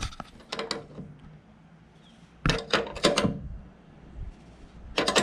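Hand-tool work on tailgate hardware: three short clusters of sharp metal clicks and knocks as the shock's pivot stud is fitted and tightened into its threaded insert.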